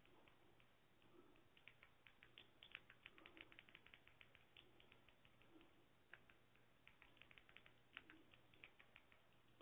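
Faint, quick clicking of a remote control's buttons pressed in irregular runs, sometimes several a second, as a cursor is stepped across an on-screen keyboard. A faint low hum sits underneath.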